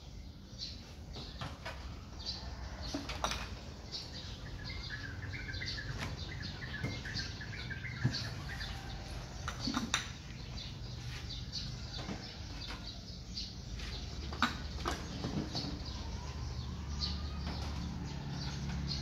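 Scattered clicks, taps and light knocks of kitchen utensils and their packaging being handled, over a low steady hum. A bird chirps for a couple of seconds about five seconds in.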